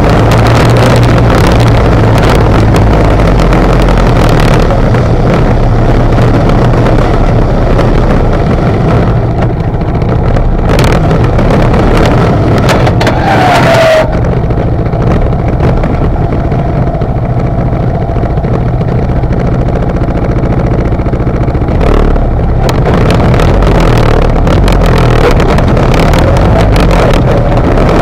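An ATV engine running steadily under load, close to the microphone, while its front plow blade scrapes snow and slush, with wind on the microphone. The hiss over the engine drops suddenly about halfway through.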